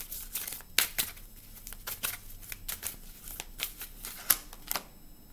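A deck of tarot cards being shuffled by hand: a run of quick, irregular card flicks and slaps that thins out near the end.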